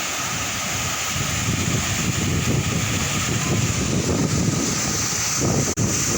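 Steady rush of a waterfall, with wind buffeting the microphone in gusty low rumbles. There is a momentary dropout near the end.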